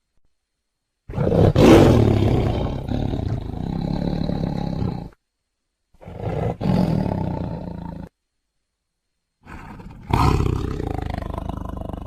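Tiger roaring three times, each roar cut off cleanly by a second or so of silence; the first is the longest and loudest just after it starts, and the third runs on past the end.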